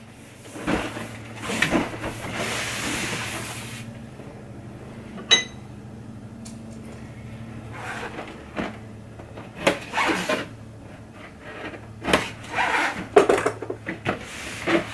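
Large cardboard kit box being handled on a desk: a stretch of sliding, rubbing cardboard, a sharp click, then a run of knocks and scrapes as it is turned and set down.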